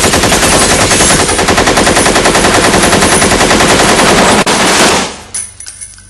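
Machine gun firing one long, rapid, continuous burst that stops about five seconds in, leaving a fading echo with a few faint clinks.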